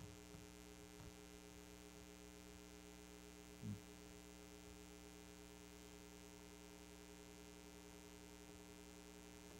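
Near silence apart from a steady electrical mains hum, with one brief low sound a little under four seconds in.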